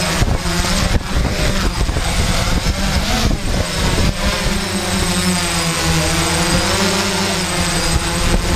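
DJI Flame Wheel F550 hexacopter's electric motors and propellers whirring close to its onboard camera in flight, the pitch wavering up and down as the motors change speed.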